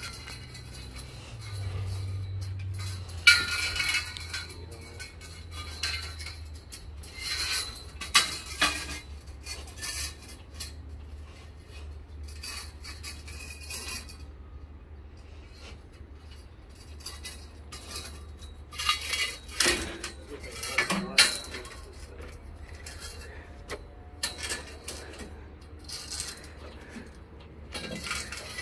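Scattered metallic clinks, clanks and rattles as metal parts are handled at a bandsaw mill, over a low steady hum.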